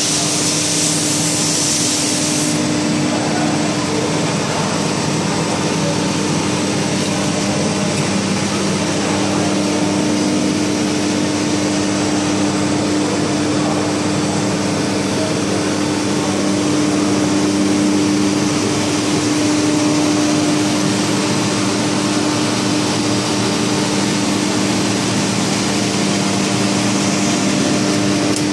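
HDPE sheet extrusion line running: motors, drives and blowers giving a loud, steady mechanical hum with a steady low tone. A high hiss cuts off about two seconds in.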